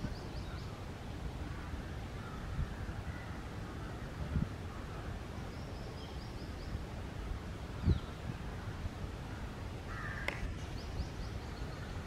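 Scattered bird calls over a steady low outdoor rumble: faint high chirps midway and a louder, harsh call about ten seconds in, with a few soft thumps.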